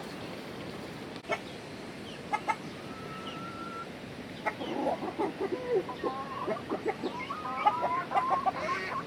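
Chickens clucking: a rapid run of short clucks starts about halfway through and carries on to the end, after a few sharp clicks and a brief whistle-like call earlier.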